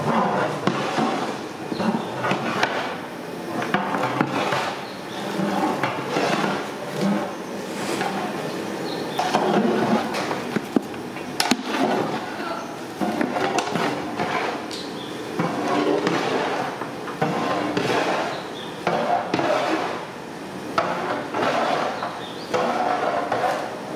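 A long metal stirring paddle scraping and knocking against a large cooking pot as raw marinated chicken pieces are turned over, with scattered clanks and one sharper knock about halfway through.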